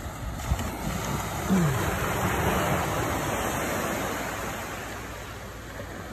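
Ocean surf breaking and washing up the beach, swelling about a second and a half in and slowly fading. A short bump comes just before it.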